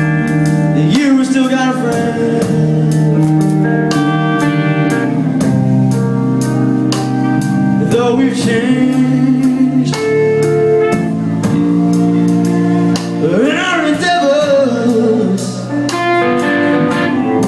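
Live blues-rock: a 1959 Gibson Les Paul Standard electric guitar played through a Bogner Ecstasy amplifier, over a steady drum beat.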